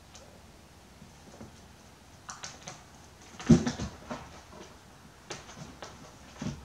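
Kittens' paws and claws tapping and scrabbling on chair upholstery and the floor, a scatter of light clicks, with a heavier thump about three and a half seconds in as a kitten jumps down.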